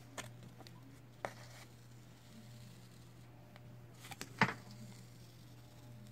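Blue painter's tape being peeled off watercolor paper: a few light clicks and crackles, with the sharpest snap about four and a half seconds in.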